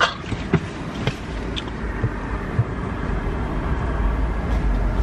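Low steady rumble of a car and outdoor noise coming in through an open car window, getting louder after about a second, with a few light clicks and knocks near the start.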